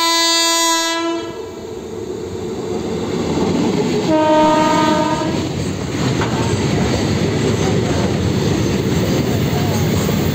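A WAG9 electric freight locomotive sounds its horn twice, a blast at the start and a shorter one about four seconds in. The goods train's wagons then rumble past close by, louder from about two seconds in, their wheels clattering over the rail joints.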